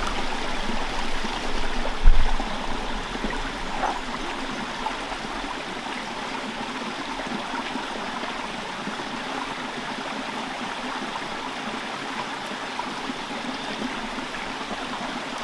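Steady rush of a nearby stream running, with a single low thump about two seconds in.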